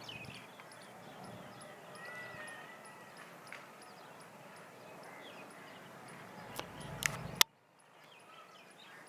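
Several small birds chirping and calling, with short whistled notes and chirps overlapping. About seven seconds in come three sharp clicks, and after the last and loudest the sound drops away abruptly for a moment.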